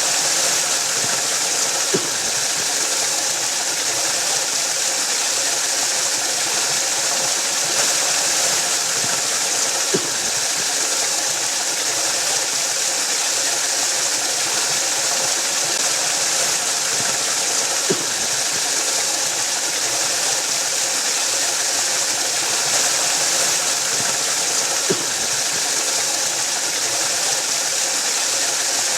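Waterfall rushing in a steady, dense hiss, strongest in the high range, with a few faint clicks several seconds apart.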